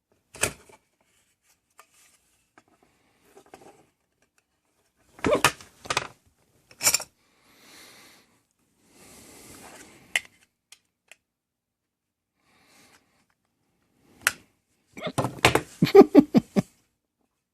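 The plastic housing of a battery-powered motion-sensor LED light being handled and probed for a way in: scattered hard plastic clicks and knocks with soft rubbing between them, then a quick run of clicks and rattles near the end.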